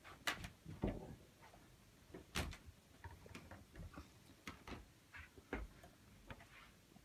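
Quiet room with a scatter of faint, irregular knocks and clicks from someone moving about while filming.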